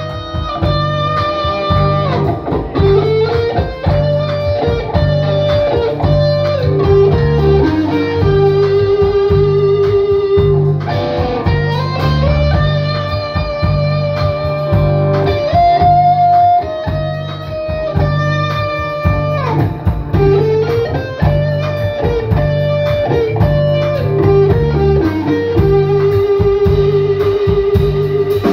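Live electric guitar lead with bent, sliding notes and long vibrato-held notes over a pulsing bass line and drums. A phrase is played and then repeated about halfway through.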